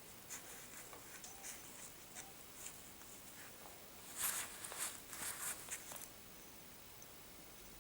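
Faint light clicks and rattles of small metal bicycle parts being handled, busiest from about four to six seconds in: the bottom bracket cup with its loose ball bearings.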